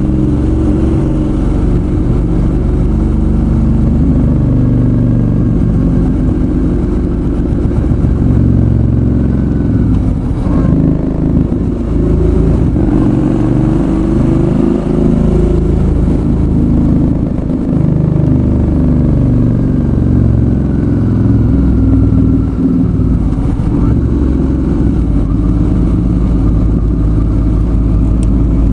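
Suzuki V-Strom 650's V-twin engine running under way. Its pitch rises and falls repeatedly as engine speed changes.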